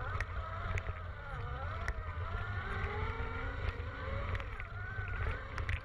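Electric dirt bike's motor and drive whining as it rides, the pitch sliding up and down with the throttle, over a steady low wind rumble on the microphone and a few sharp knocks from the bumpy track.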